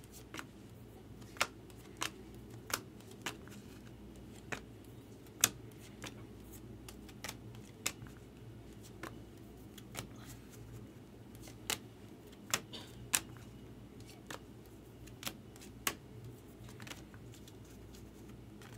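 Glossy baseball cards being flipped off a hand-held stack one at a time, each card giving a short sharp click, roughly one a second at an uneven pace.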